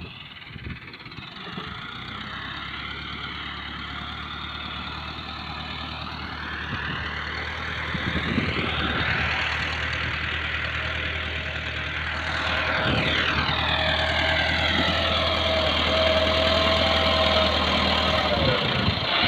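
Massey Ferguson 375 tractor's diesel engine running, its speed rising and falling as the front blade pushes sand, and growing louder in the second half.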